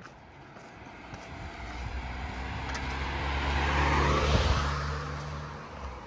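A motor vehicle driving past close by: engine hum and tyre noise grow louder for about four seconds, peak, then fade away.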